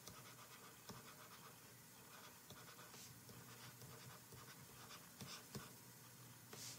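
Faint scratching and tapping of a stylus handwriting on a tablet, over near-silent room tone.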